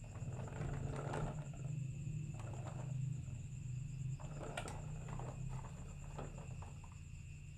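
Marbles rolling down a wooden marble run: a steady low rumble with scattered clacks as they hit the track, slowly fading toward the end.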